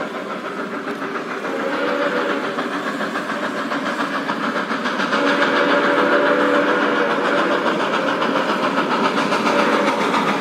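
Steam locomotive running with a rapid, even chuff, growing louder, while its steam whistle sounds three times in low, steady blasts, the longest lasting about two seconds near the middle.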